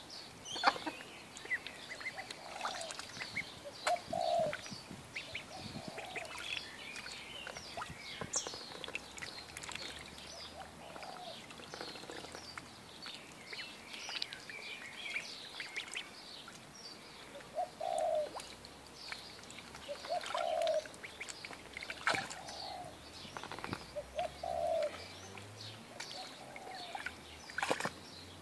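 Indian runner ducklings peeping, with many quick high chirps and small splashes and clicks as they swim and dabble in shallow water. A lower, short call comes every few seconds.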